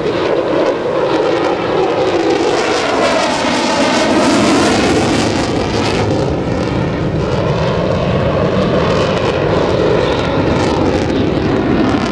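F-16 Fighting Falcon fighter jet's engine noise, heard from the ground as the jet maneuvers overhead. It is loud and continuous, with a sweeping, phasing whoosh that rises and falls as the jet passes.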